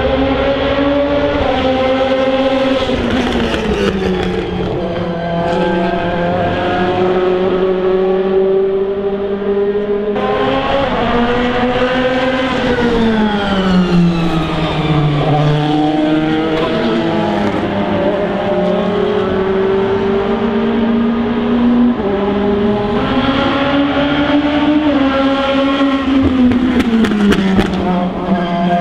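DTM race cars' 4.0-litre V8 engines running hard at high revs, the note falling steeply for a few seconds around the middle and climbing again, with a few sharp exhaust pops and cracks.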